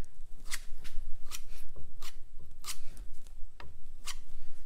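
Putty knife scraping and pressing two-part epoxy filler into screw holes in a wooden boat frame: a run of short, sharp scrapes, roughly two a second.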